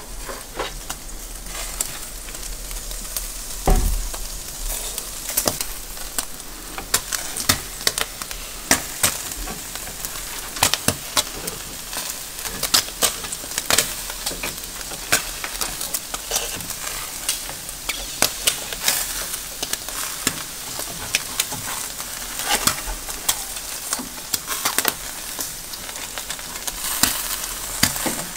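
Skewers of heart and chicken grilling over hot charcoal: juices and fat sizzling with a steady hiss and frequent sharp crackles and pops. A single dull knock comes about four seconds in.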